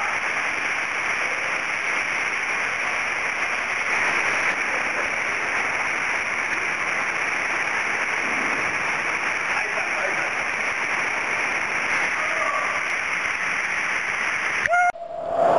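Steady rush of a small waterfall pouring into a pool in a narrow rock canyon, with faint voices at times. The sound cuts off abruptly near the end.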